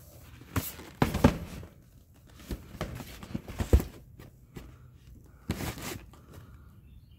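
Rummaging through a storage unit's contents: irregular knocks, clicks and rustles of objects and packaging being handled and set down. The louder noisy bursts come about a second in and again around five and a half seconds.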